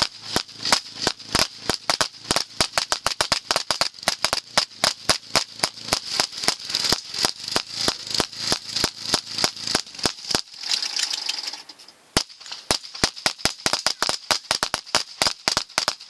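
Rapid semi-automatic pistol fire in 9mm and .40 S&W, several shots a second from more than one gun, emptying magazines into an old lawnmower. The firing breaks off for about two seconds around ten seconds in, then resumes.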